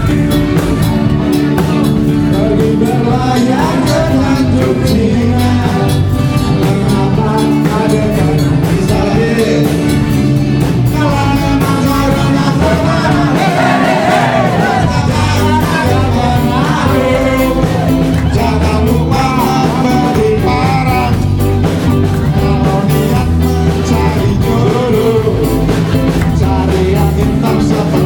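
A man singing through a microphone and PA over amplified music with a steady beat.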